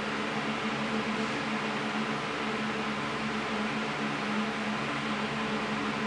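Steady electrical hum with a constant hiss, unchanging throughout, while a small power supply drives a cold-cathode fluorescent laptop backlight tube that does not light because it is broken.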